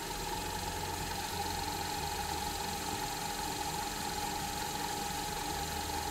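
Small bench lathe running steadily with a constant whine, spinning a cue shaft while 500-grit sandpaper is held against the new jump tip to sand it flush with the ferrule.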